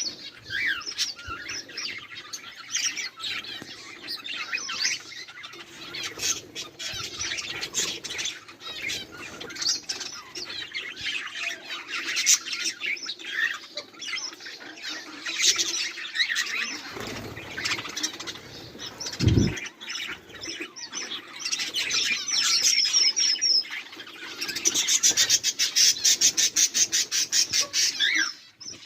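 Budgerigars chattering, chirping and warbling continuously, with a low thump about two-thirds through and a fast, evenly pulsed buzz near the end.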